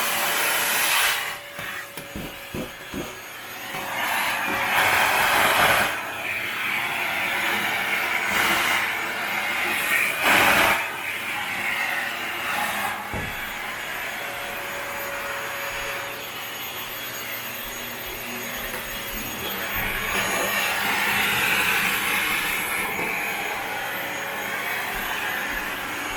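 Panasonic paper-bag canister vacuum cleaner running with its crevice nozzle: a steady motor tone under a suction rush that swells and drops as the nozzle is worked along corners and edges. A few sharp knocks of the nozzle come about two to three seconds in.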